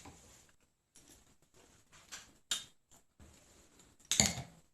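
Spoon clicking and scraping in a bowl of rice pudding as it is eaten: a few soft, scattered clicks, then a louder knock about four seconds in.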